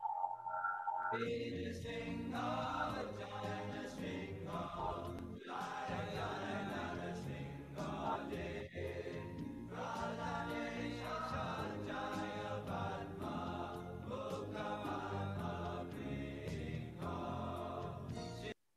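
Devotional music: a group of voices chanting a sung devotional melody over steady accompaniment, which cuts off abruptly near the end.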